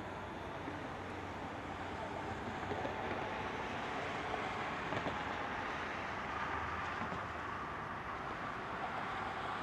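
Steady engine rumble of a large ship passing under the lift bridge, with a faint hum, growing a little louder a couple of seconds in.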